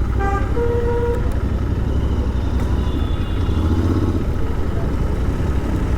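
Royal Enfield Interceptor 650's parallel-twin engine running as the motorcycle is ridden, a steady low rumble.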